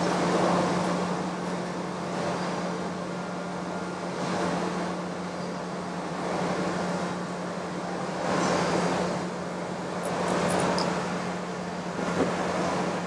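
OD (cylindrical) grinder running with a steady motor hum, its wheel grinding the end of a steel shaft with a hiss that swells and fades about every two seconds.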